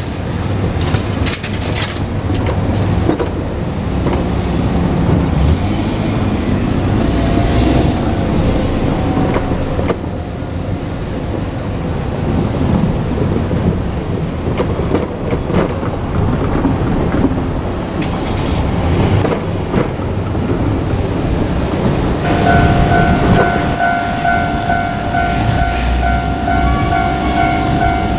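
JR KiHa 200 diesel railcar running on the line, with engine rumble and wheels clattering over rail joints. About three quarters of the way in, a steady pulsing electronic tone starts up and keeps going, consistent with a Japanese level-crossing warning bell.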